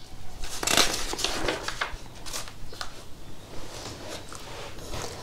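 Banknotes being counted and handled: irregular crackling and rustling, busiest in the first couple of seconds.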